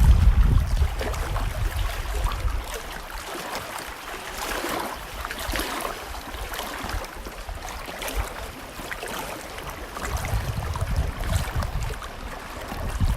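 Wind gusting against the microphone in heavy low rumbles over a steady rushing noise, easing off in the middle and picking up again near the end.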